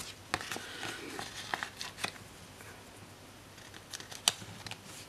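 Paper sticker sheets rustling and crinkling as they are handled, with light ticks and clicks. One sharp click comes about four seconds in as tweezers pick a sticker off the sheet.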